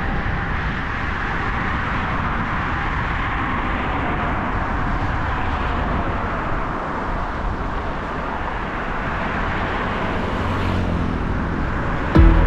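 Steady rushing road noise of passing car traffic mixed with wind on the microphone during a bike ride, unbroken and without distinct events.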